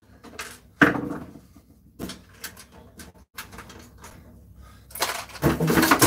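Knocks and clatter of a microwave's sheet-steel casing being worked on with hand tools as its screws are taken out. Near the end comes a louder stretch of metal clatter as the microwave is tipped over on the bench.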